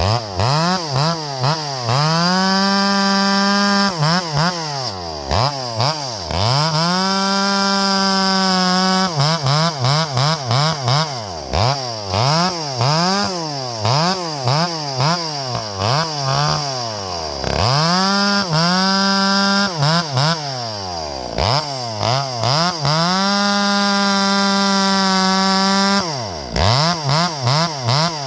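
Two-stroke chainsaw revved to full throttle again and again. It holds the top pitch for two to three seconds at a time several times, with many short throttle blips between, and drops back to idle each time.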